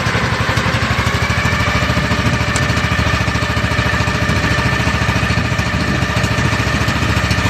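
A small fishing boat's engine running steadily with a fast, even putter while the boat moves slowly and the net is paid out over the side.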